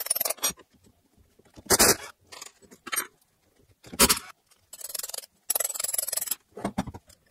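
Cordless drill-driver run in short bursts, about six with pauses between, undoing the cover screws of a hydraulic gear pump; the longest burst carries a faint high motor whine.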